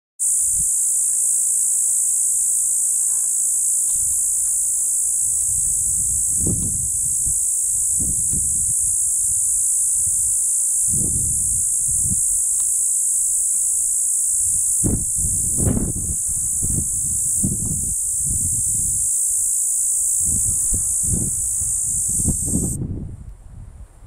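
A Hadoa inaudita cicada (formerly Tibicen inauditus) singing one continuous, steady, high-pitched buzz that cuts off suddenly about a second before the end. Low rumbles come and go beneath it.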